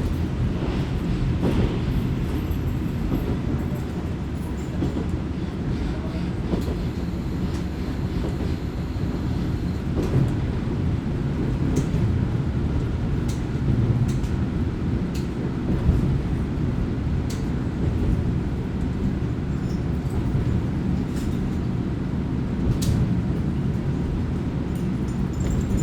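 Kominato Railway diesel railcar running, heard from inside the car: a steady low rumble of the engine and the wheels on the track, with sharp clicks here and there.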